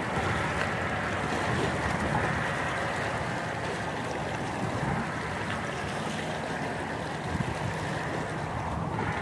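Small waves washing steadily against the rocks at the foot of a seawall, with wind rumbling on the microphone.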